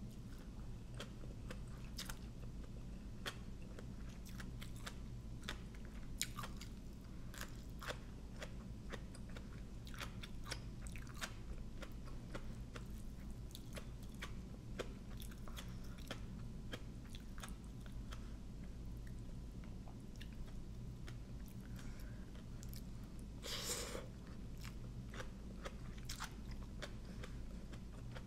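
A person chewing and biting a mouthful of som tam with raw shrimp and rice noodles, many small wet mouth clicks and crunches. There is one short louder noise burst near the end, over a steady low hum.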